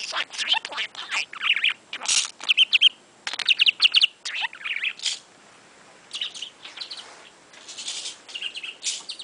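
Budgerigar chattering: rapid chirps, clicks and warbles, busiest in the first five seconds and softer and sparser after a short pause.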